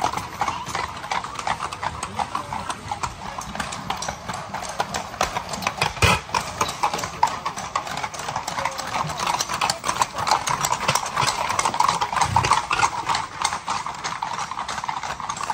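Shod horses' hooves clip-clopping on a tarmac road, many horses at once in a dense, irregular patter as carriage horses and then ridden grey Camargue horses pass close by. There is one sharper knock about six seconds in.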